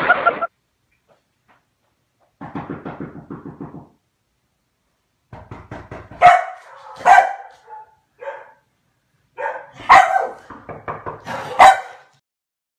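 A Komondor barking: a string of sharp barks, four of them loudest, starting about five seconds in, after a shorter, quieter stretch of rapid pulsing.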